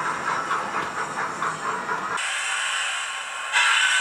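Steam locomotive sounds from a Zimo sound decoder in a Bachmann 9F model locomotive, played through a small speaker. A rhythmic chuffing breaks off about two seconds in to a steady steam hiss, which gets suddenly louder near the end.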